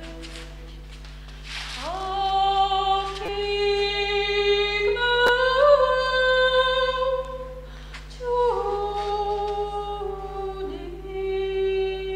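A woman singing solo without accompaniment, holding long notes. She slides up into a note about two seconds in and down into another about eight seconds in, over a steady low electrical hum.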